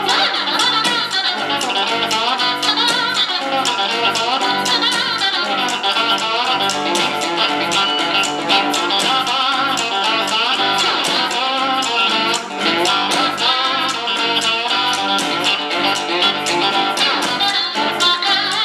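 Live blues band playing: a box-bodied electric guitar takes the lead over drums and bass with a steady beat, and there are no sung lines.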